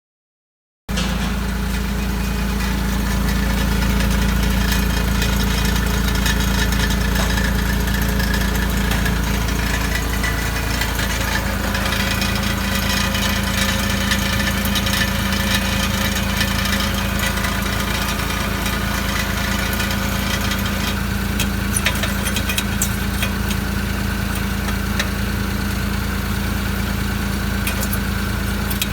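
Car engine idling steadily with a tinny metallic rattle from underneath, the exhaust heat shield chattering because its mount has corroded through and come loose. The sound cuts in about a second in.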